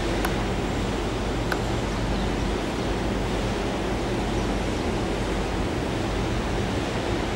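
Steady rushing noise over a low hum beside a railway line, as an electric high-speed train approaches in the distance. The level stays even, with no separate events.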